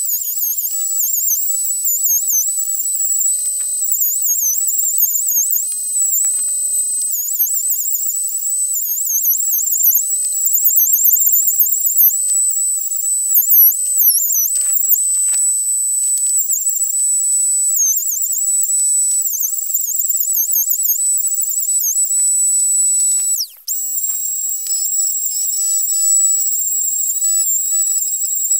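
Router in a router table running with a high-pitched whine as a plum-branch handle blank is fed past the bit, the pitch dipping again and again as the bit bites into the wood. The sound cuts out for a moment about four-fifths of the way through, then resumes.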